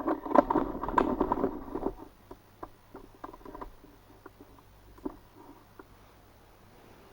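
A dense run of rustling and light clicks for about two seconds, then a few scattered single clicks.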